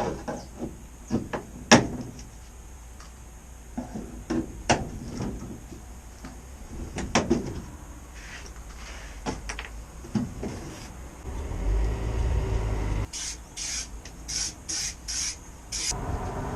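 Workshop handwork on van bodywork: scattered knocks, taps and clicks of tools, a brief low rumble, then a run of about seven short hissing bursts near the end.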